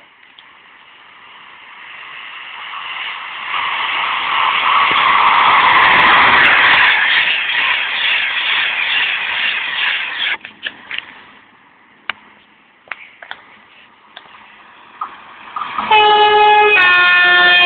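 Virgin Pendolino (Class 390) electric train passing through the station at speed: a rush of wheels and air that builds, is loudest about five to seven seconds in, and then fades away. Near the end, an approaching train sounds its two-tone horn, a high note followed by a lower one.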